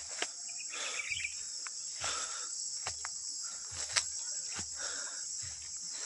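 Steady high-pitched insect chorus in the vegetation, with scattered light clicks and soft low thumps under it.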